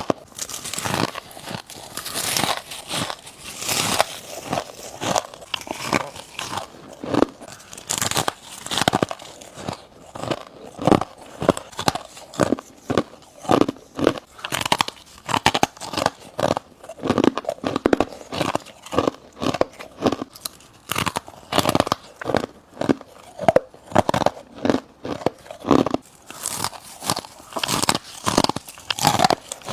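Close-up bites into chunks of freezer frost ice: crisp crunching and crackling, one bite after another, several crunches a second, with brief gaps.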